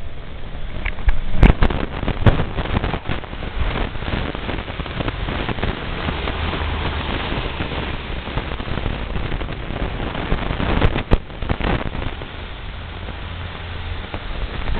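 Stormy wind rushing and rumbling on a small camera's microphone, broken by a few sharp cracks or knocks about a second and a half in, near two seconds, and again around eleven seconds in.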